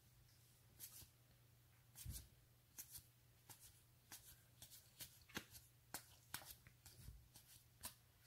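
Faint, irregular flicks and slides of 2020 Topps Series 1 baseball cards being passed one by one from one hand-held stack to the other, about one or two a second.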